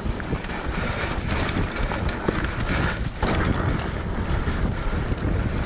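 Mountain bike ridden fast over a rough dirt trail: tyres rolling over dirt and roots, with steady rattling and clicking from the bike's chain and frame, and a low rumble of wind on the microphone.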